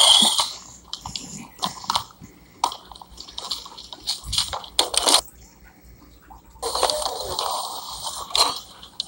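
Phone-handling noise while walking: scattered clicks and knocks of footsteps and the phone being moved. About two-thirds of the way in comes a louder stretch of rustling as the person gets into a car.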